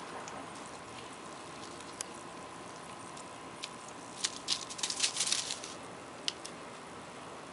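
Dry leaves crackling and rustling on a concrete patio, a few single ticks and then a cluster of short crackles from about four seconds in, over a faint steady hum.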